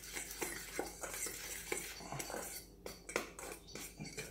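A metal spoon stirring a dry flour mix in a stainless steel bowl: irregular scraping and light clinks of metal on metal.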